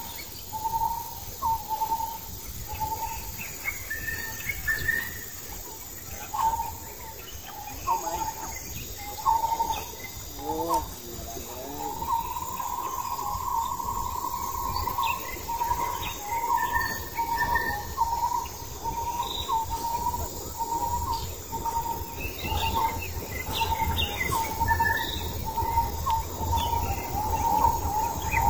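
Wild birds calling: one bird repeats a short note of the same pitch, about one to two a second, and holds a longer note near the middle, while other birds add higher chirps.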